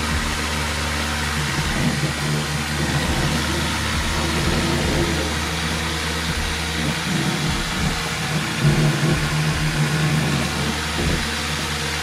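Small USB fan running steadily off a 12 V DC-DC converter: a constant motor whir with rushing air and a low hum.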